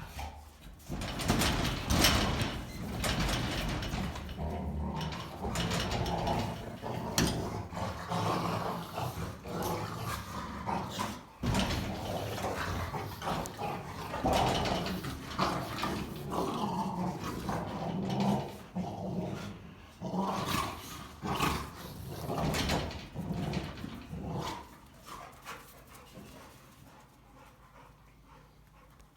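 Rottweilers play-fighting, wrestling with continuous loud growling that dies down near the end.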